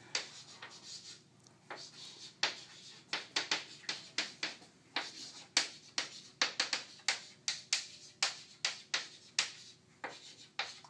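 Chalk writing on a blackboard: an irregular run of sharp taps and short scratches, several a second, as letters are written.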